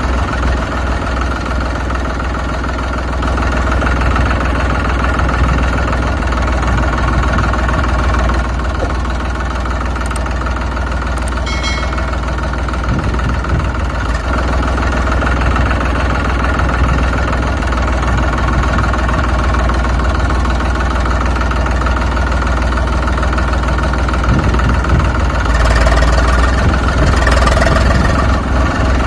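A tractor engine running steadily at idle, a low, even drone. A brief high-pitched tone sounds about twelve seconds in, and the engine grows a little louder near the end.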